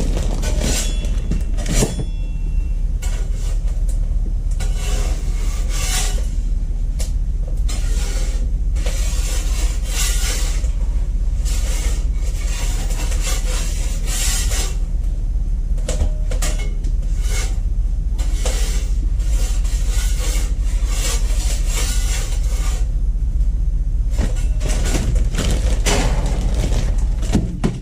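A steady, loud low machine hum, with intermittent clattering and scraping over it. The hum cuts off suddenly at the very end.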